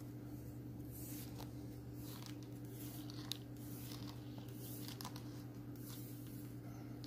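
Leather lace being pulled through the punched holes of a leather keychain: a run of short, irregular scraping swishes, with one sharp tick a little over three seconds in. A steady low hum runs underneath.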